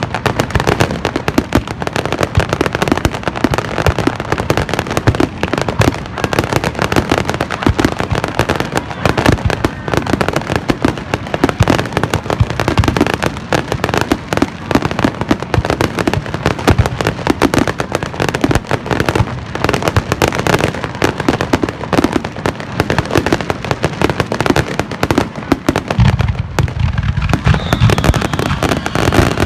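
Aerial fireworks in a finale barrage: rapid, continuous bangs and crackling shell bursts overlapping one another, with the low booming growing heavier near the end.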